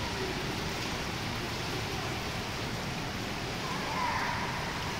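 Indoor swimming pool ambience: a steady hiss of moving pool water, with a faint brief higher sound about four seconds in.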